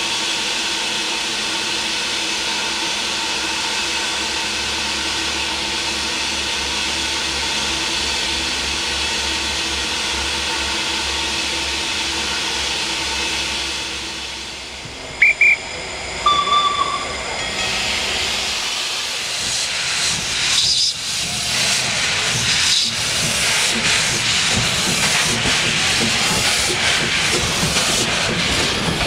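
Steam hissing steadily from a steam tram motor, then two short high whistle toots about halfway through and a brief lower tone. The tram then gets under way, running along the track with a rumble and repeated wheel clicks.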